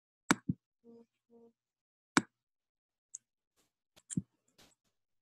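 Computer mouse clicking: a quick pair of sharp clicks near the start, a single click about two seconds in, and a couple more close together about four seconds in.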